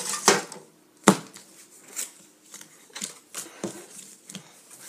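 Clicks, taps and light rustles as a Pokémon collector's tin, its clear plastic insert and trading cards are handled. A sharper knock comes about a second in.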